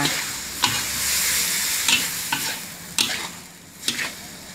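Stir-frying bamboo shoots and pork in a steel wok: a metal spatula scrapes and knocks against the wok about five times over a steady sizzle of food in hot oil. The sizzle fades somewhat near the end.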